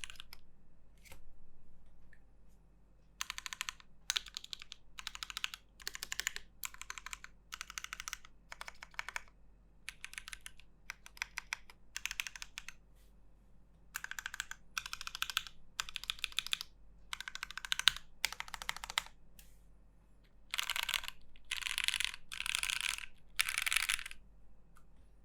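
Typing on an Aquila custom mechanical keyboard with an FR4 plate, top-mounted in an aluminium case, and JWK Dogikon switches: rapid keystrokes in short bursts with brief pauses, the last few bursts fuller and louder.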